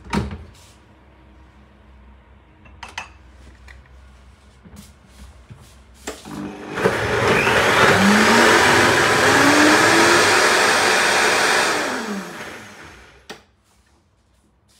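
High-speed countertop blender blending a thick pistachio dressing thinned with coconut water kefir. After a knock at the start, the motor starts about halfway in, its pitch climbing as it speeds up, runs for about five seconds, then winds down and stops.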